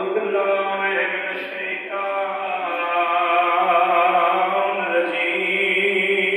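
A Shia majlis orator (zakir) chanting a melodic recitation in a man's voice, drawing out long held notes with few pauses.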